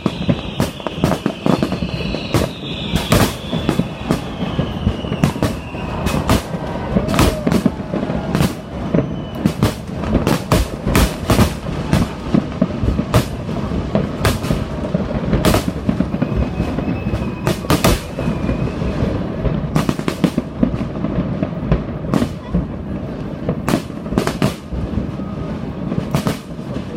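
Fireworks display exploding: a dense run of rapid, irregular bangs and crackles over a low rumble, with a high falling whistle in the first few seconds.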